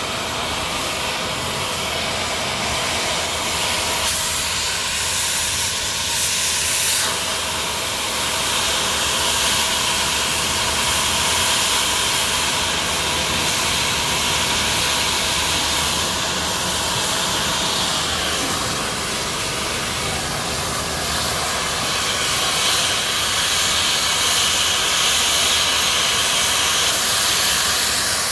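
Oxy-fuel cutting torch hissing steadily as it burns into a steel crane rail. The hiss grows louder about two thirds of the way through, and by the end molten sparks are spraying from the cut.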